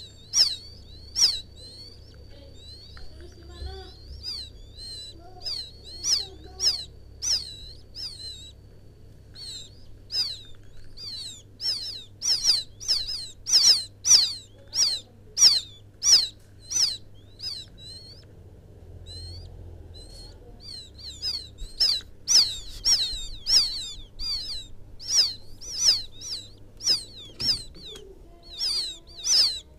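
Quail chicks peeping to call the mother bird: a long series of short, high, downward-slurred peeps, about two a second, with brief lulls about 9 and 19 seconds in.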